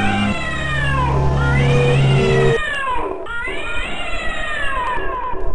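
Long, cat-like meowing wails in an experimental noise soundtrack, each rising and then falling in pitch, about four in a row. Under the first half runs a steady low drone that stops suddenly about two and a half seconds in.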